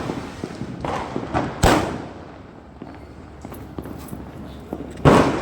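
Firecrackers going off: sharp bangs, the loudest about one and a half seconds in and another near the end, with a few smaller pops between.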